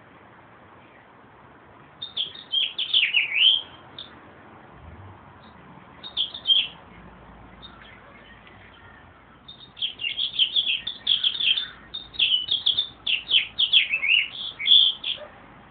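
Meadowlark singing: a phrase of quick falling whistled notes about two seconds in, a short one around six seconds, then a long run of rapid notes from about nine and a half seconds until near the end.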